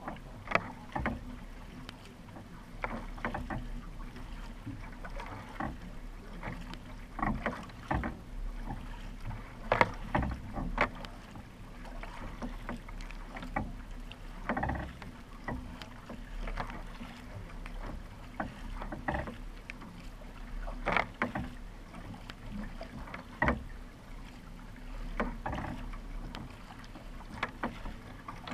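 Racing kayak being paddled: the paddle blades enter and leave the water in a series of short splashes at uneven spacing, over a steady low hum.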